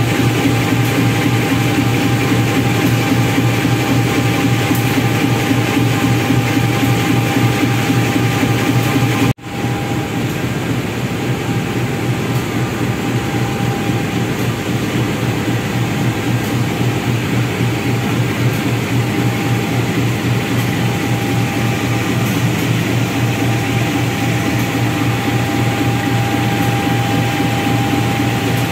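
CC203 diesel-electric locomotive idling close by: a steady, pulsing engine rumble with a faint steady whine above it. The sound breaks off for a moment about nine seconds in.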